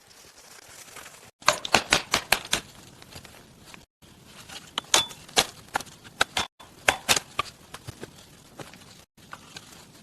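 Quick runs of sharp knocks or chopping strikes, several in each run, broken up by abrupt cuts.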